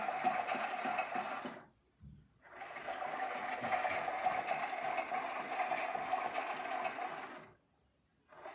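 Miele toy washing machine's small motor running, a steady whirr that winds down to a stop twice and starts up again after under a second each time, the drum turning in stretches during a wash cycle.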